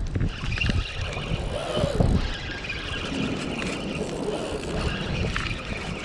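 Spinning reel being cranked against a hooked salmon, giving a faint, intermittent high whir, over wind rumbling on the microphone.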